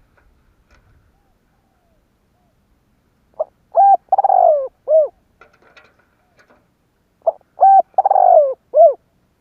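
Spotted dove cooing: two song phrases about four seconds apart, each of four notes, with a longer note that falls in pitch before a short final note.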